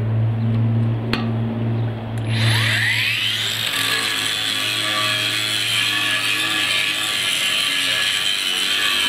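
A steady low hum, then about two seconds in an 18 V brushless cordless angle grinder fitted with a concrete wheel spins up, its whine rising, and grinds steadily with a loud, harsh hiss.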